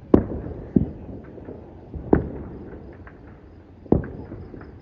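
Fireworks going off: four sharp bangs spread over the few seconds, the first the loudest, each trailing off in an echo.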